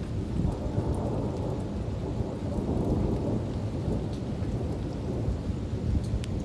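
Monsoon thunderstorm: thunder rumbling low and continuously, swelling near the middle, over steady rain.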